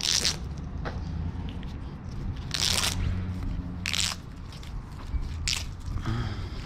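Scrap copper wire being worked by hand: four short crunching scrapes, a second or so apart.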